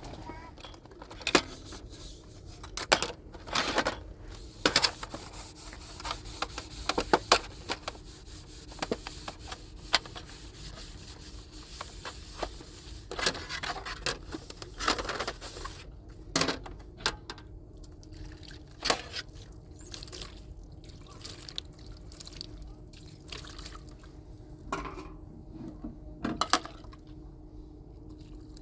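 Water pouring and splashing, with irregular knocks and clinks from things being handled in it.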